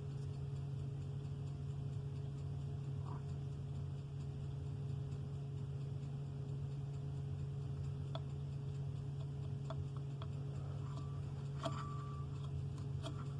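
A steady low hum, with a few light scattered clicks in the second half as the turbocharger's shaft and wheel are handled and wiggled; the shaft has play, a sign of worn turbo bearings.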